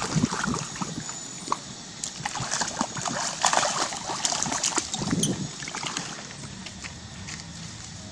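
Water splashing and sloshing as macaques swim and wade through shallow water. The splashing is busiest from about two to five seconds in and eases off near the end.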